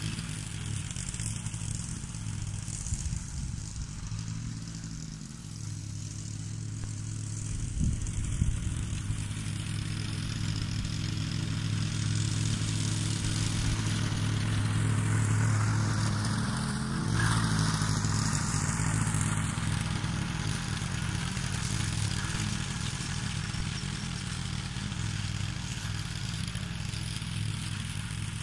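Honda HRS536 walk-behind rotary mower's four-stroke engine running steadily while it mows grass. It grows louder as the mower comes closest around the middle, then fades as it moves away. A brief clatter comes about eight seconds in.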